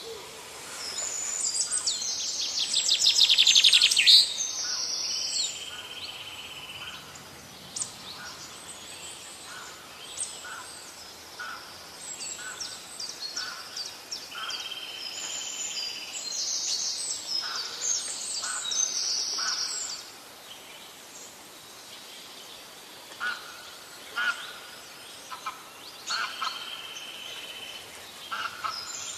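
Several birds calling: a loud, rapid run of notes builds up over the first few seconds, then short calls repeat roughly once a second, with a few longer held notes.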